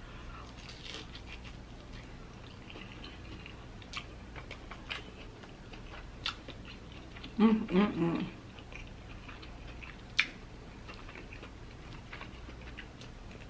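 Close-miked chewing of a deep-fried, breaded king crab leg, with scattered sharp crunching clicks. A short vocal sound comes about seven and a half seconds in.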